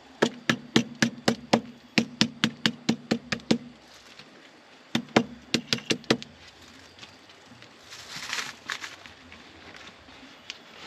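Lemongrass stalks being bruised flat with sharp repeated blows, about four a second for three seconds, then a second shorter run of blows; a soft rustle follows near the end.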